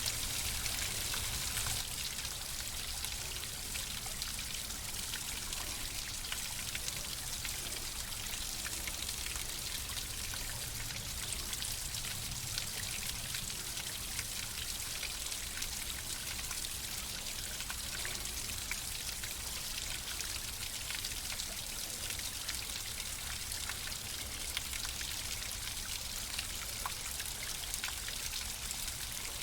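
Running water flowing steadily, a constant hiss of water with many small splashes and drips ticking through it and a low rumble underneath.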